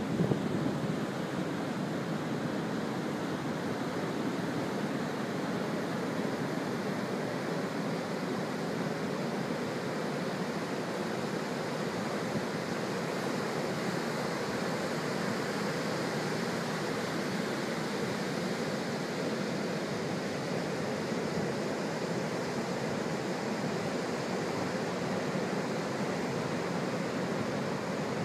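Pacific surf breaking on a flat sandy beach: a steady, even rush of waves with no single wave standing out. A few gusts of wind hit the microphone right at the start.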